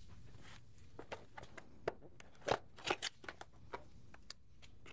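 Cardboard product box being handled and its end flap pried open: a quick irregular run of sharp clicks, scrapes and crackles.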